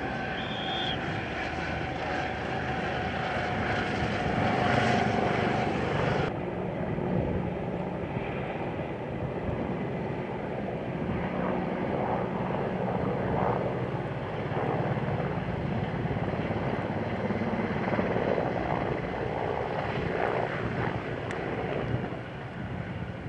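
Military helicopters flying past: a steady rotor and turbine drone with a high whine, loudest about five seconds in. About six seconds in the sound changes abruptly, the whine drops away, and the drone carries on.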